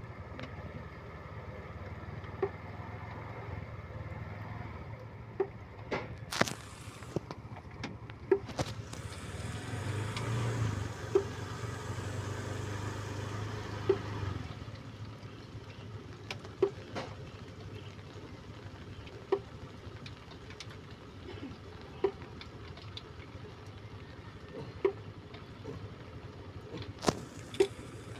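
Suzuki Multicab's F6E three-cylinder engine running steadily, brought up briefly and louder about ten seconds in, then settling back. Sharp ticks every two to three seconds sound over the engine.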